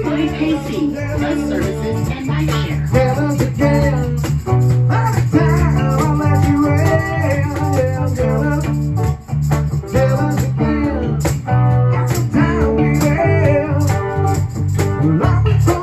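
A small band playing live: an electric bass guitar line, a shaker rattle keeping a steady beat, and a melody line over the top.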